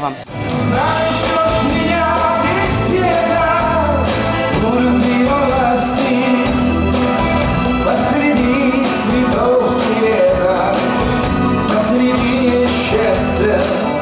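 Live band music: a man singing a melody over electric bass and drums, with cymbals ringing.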